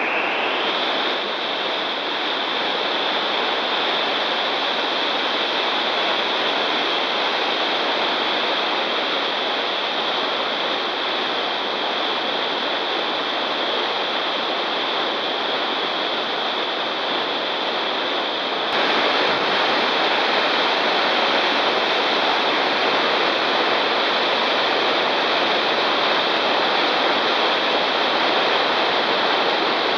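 Steady rushing of whitewater rapids on a brown, high-running river. A thin steady high tone sits over it, and the sound gets a little louder about two-thirds of the way in.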